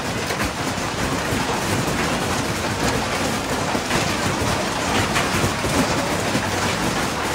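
Heavy hail and rain pelting down, a steady dense noise with many sharp ticks of hailstones striking the ground.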